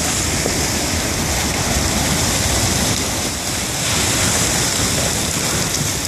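River ice going out in the spring breakup: floes of ice and water moving past the bank in a loud, steady rushing noise.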